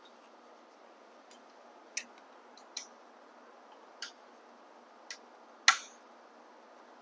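About six sharp, scattered metal clicks, the loudest near the end: a hex key and small 3 mm bolts being handled as the bash guard is unbolted.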